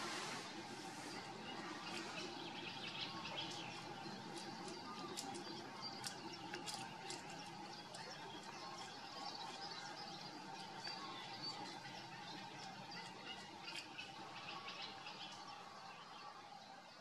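Water vole gnawing through a reed stem: irregular crisp crunching clicks, thickest in the first half, with birds chirping in the background.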